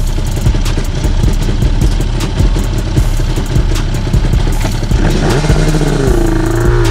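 Yamaha Banshee ATV's twin-cylinder two-stroke engine running, its pitch rising and falling with revving from about five seconds in.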